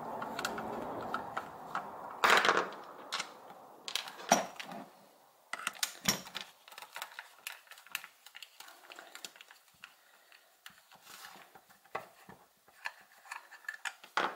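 Phillips screwdriver working the screws out of a Bosch CSB 700-2RE hammer drill's plastic housing: scattered small clicks and taps of metal on plastic, with a few sharper knocks as the tool and screws are handled.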